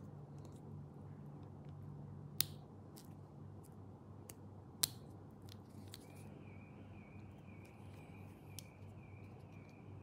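Small clicks and taps of handling over a faint hum, with two sharper clicks a couple of seconds apart. About six seconds in, a faint high tone begins, wavering in pulses about twice a second.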